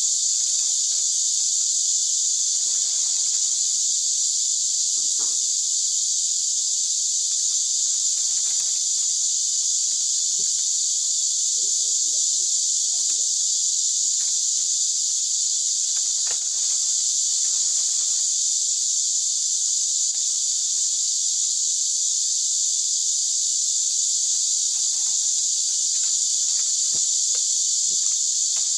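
Steady, high-pitched chorus of insects, unbroken throughout, with faint rustles and clicks of split bamboo strips being woven into a basket.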